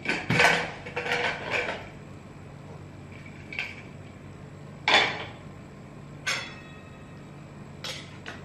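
Metal clatter of an aluminium pressure cooker being opened and handled with a steel ladle: a quick run of clinks and knocks in the first two seconds, then single sharp clinks every second or so, the loudest about five seconds in.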